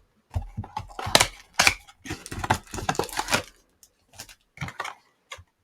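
A trading-card box and its packaging being torn open and handled: tearing and crinkling for about the first three and a half seconds, then a few scattered light rustles and clicks.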